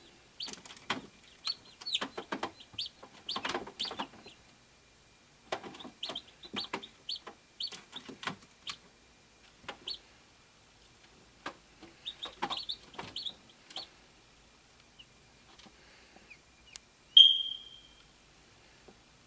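A hatching chick peeping in clusters of short, high calls, mixed with small clicks. Near the end it gives one louder, longer peep.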